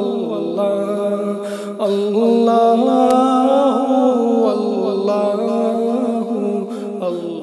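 Background devotional vocal music: a solo voice singing a slow, chant-like melody over a steady low drone.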